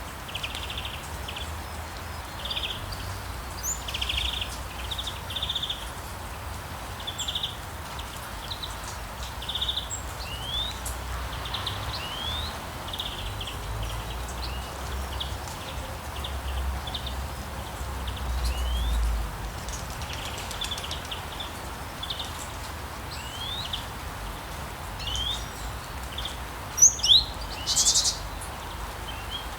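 Steady rain falling, with songbirds chirping over it: many short chirps and quick rising whistled calls throughout, and a few louder, higher calls near the end.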